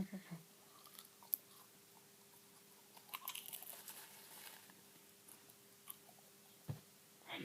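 Microwave popcorn being chewed: faint crunching in scattered bites, densest about three to four and a half seconds in, with a short low thump near the end.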